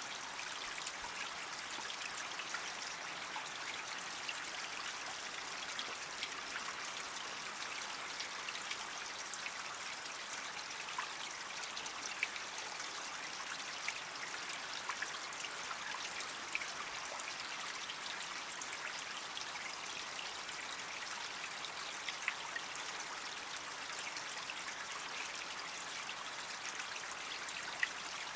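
Shallow creek water trickling steadily, with a few small sharp plinks.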